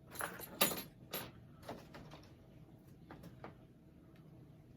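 A handful of short scrapes and knocks of objects being handled and set down, bunched in the first two seconds, the loudest about half a second in, with two fainter ones later.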